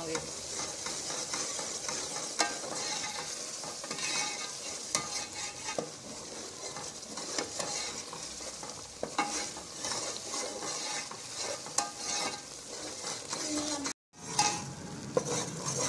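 Gram flour (besan) cooking in oil with sugar syrup in a metal pot, sizzling as a steel spoon stirs it, the spoon now and then knocking and scraping against the pot. The mixture is being cooked down until its water dries off. The sound cuts out for a moment near the end.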